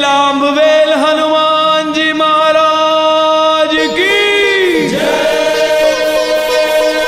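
A chorus of voices chanting devotional music in long held notes. About four seconds in, one note swoops down in pitch.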